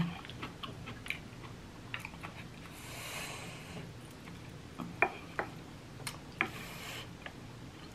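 Close-miked eating sounds: chewing and wet mouth clicks, with a few sharp clicks as a wooden spoon scoops food against a ceramic bowl.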